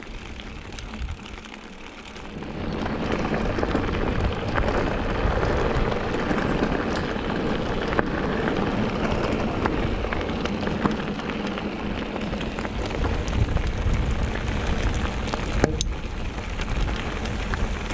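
Mountain bike tyres rolling over a gravel trail: a steady crunching rattle of stones and bike, quieter at first and louder from about two and a half seconds in, with one sharp tick near the end.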